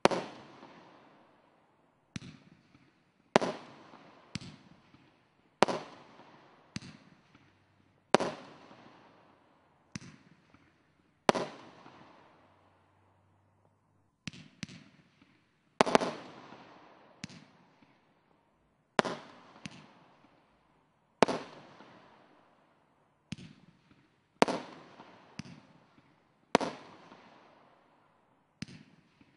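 Consumer firework cakes firing aerial shots: a string of sharp bangs, roughly one every second and irregularly spaced, each trailing off over about a second, with a short pause about twelve seconds in.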